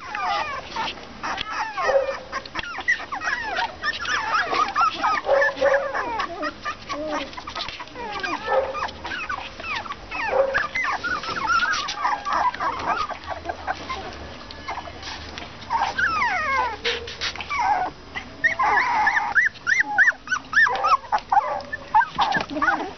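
A litter of month-old English Cocker Spaniel puppies whimpering and whining together, many short high cries overlapping and rising and falling in pitch. Toward the end they break into a quicker run of repeated yelps, with scattered light clicks throughout.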